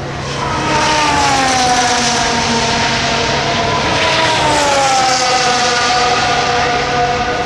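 Racing car engine at high revs going past. Its pitch sinks slowly as it goes by, after it swells in about half a second in.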